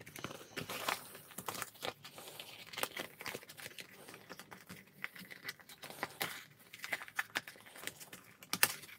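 Clear plastic rain cover of a K-Tek Stingray recorder bag crinkling and rustling as it is pulled out and handled, with scattered small clicks and scrapes throughout.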